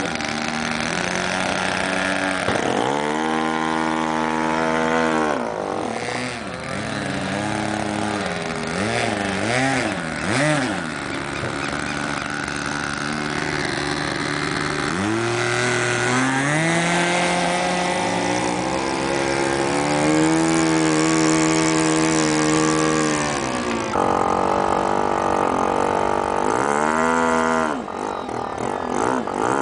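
Radio-control model airplane engine running and being throttled up and down. It runs up to a high pitch around 3 s and again around 15 s, holds there for several seconds, then drops back, with another brief run-up and drop near the end.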